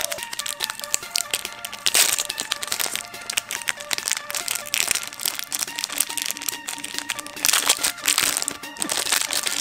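Clear plastic packaging bag crinkling and crackling in the hands as a barcode sticker is peeled off and a metal keyring is unwrapped, with louder crackles about two seconds in and near the end. Soft background music plays underneath.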